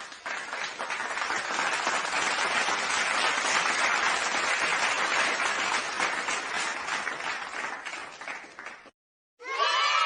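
Crowd applauding, a dense patter of many hands clapping that swells toward the middle and then fades, stopping about nine seconds in. Just before the end a different sound with steady pitched tones starts.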